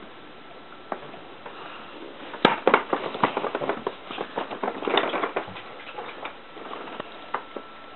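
Small dog playing with a tennis ball on a carpet: a sharp knock about two and a half seconds in, then a flurry of quick clicks and taps from paws and ball for about three seconds, thinning out to a few taps.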